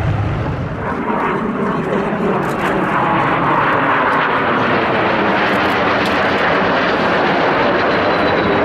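Early jet fighters, an F-86 Sabre and a MiG-15, flying overhead: a steady, loud turbojet roar, with a faint high whine coming in near the end.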